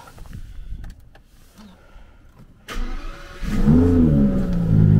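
Aston Martin engine cold-starting in freezing weather: a few light clicks, then about three seconds in the starter cranks, the engine catches with a brief flare of revs, and it settles into a steady idle.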